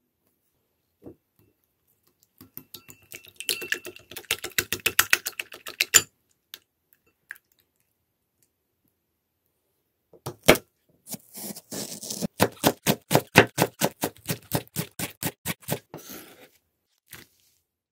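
Eggs beaten in a ceramic bowl, a quick run of clicks for a few seconds. After a pause, a knife chops green onion on a wooden cutting board in fast, even strokes for about six seconds.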